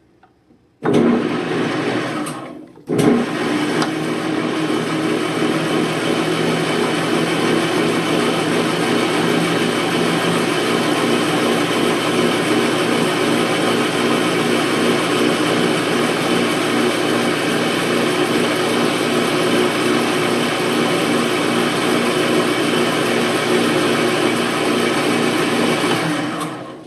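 Atlas metal lathe switched on and running in reverse, spinning a spindle held in a collet chuck. It starts about a second in, stops briefly and restarts near three seconds, then runs steadily until it shuts off at the end.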